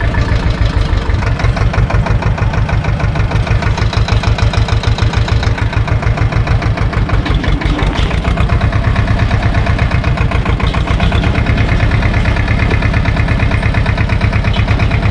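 SAME tractor's diesel engine idling steadily close by, with an even, fast firing beat.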